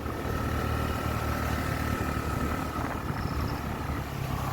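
Motorcycle engine running steadily while the bike is ridden, a continuous low hum.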